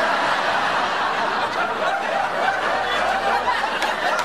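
Sitcom studio audience laughing at a punchline, a steady wave of many people's laughter.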